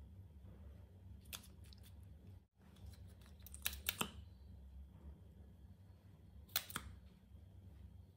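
Faint handling of liquid lipstick tubes and applicator wands over slime: a few short, sharp clicks and ticks, one about a second in, a cluster halfway through and another near the end, over a low steady hum.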